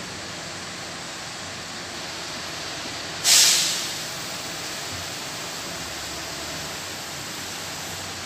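Inside a Caio Apache VIP II city bus: a steady background noise, then about three seconds in a sudden loud hiss of compressed air from the bus's pneumatic system that dies away within about a second.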